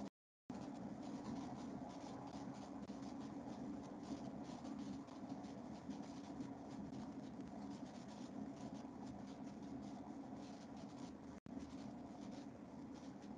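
Faint background noise from an open video-call microphone: a steady low hum with a light scratchy crackle, cut by brief dropouts to dead silence at the start and again about eleven seconds in.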